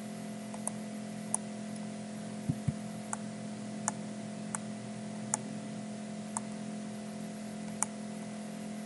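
Computer mouse clicking: about eight sharp single clicks spaced irregularly, roughly one a second, over a steady electrical hum. There are two dull low thumps about two and a half seconds in.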